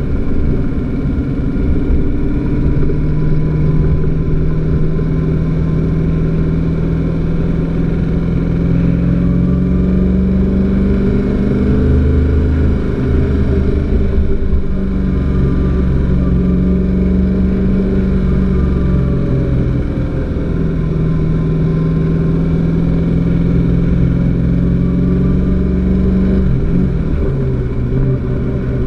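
De Tomaso Pantera's 351 Cleveland V8 driving under load, its note rising gradually and falling back about three times.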